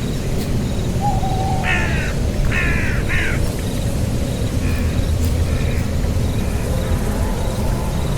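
A bird calling in short, harsh, repeated notes: three strong calls close together, then a few fainter ones. A steady low rumble of wind or handling noise on the microphone runs under the calls.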